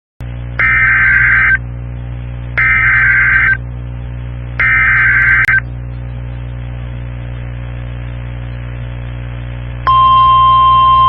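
Weather-radio EAS alert: three loud one-second bursts of SAME digital header data, a second apart, over a steady low hum. Near the end the steady 1050 Hz warning alarm tone starts, announcing a new severe thunderstorm warning.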